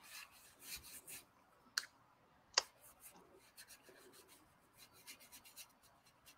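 Faint, soft brushing and scratching of an ink brush stroking across paper, in short repeated strokes, with two sharper clicks a little under two seconds in and at about two and a half seconds, the second the loudest.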